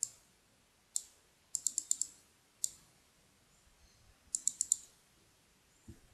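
Computer mouse clicking on a list's scroll-down arrow: sharp single clicks, a quick run of five about one and a half seconds in, and a run of four past the middle.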